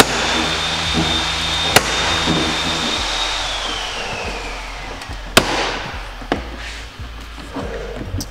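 A power tool's high whine winds up, holds steady for about three seconds and winds down over a hiss, with a few sharp snaps as plastic door trim clips are pulled loose.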